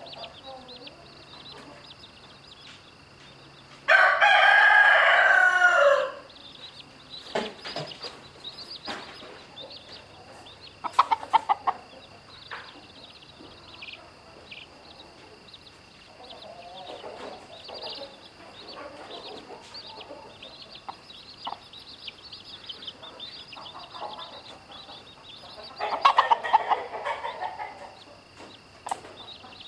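A rooster crows once, loud and about two seconds long, about four seconds in. Chicks peep constantly throughout, with a quick run of clucks around eleven seconds and another loud chicken call near the end.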